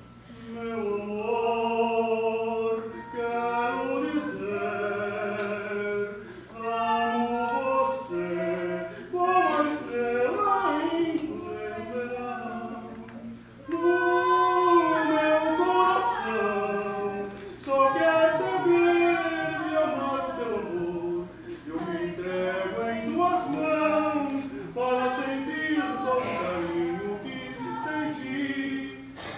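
Singers performing a serenade air, phrase after phrase of held notes with vibrato, separated by short breaths.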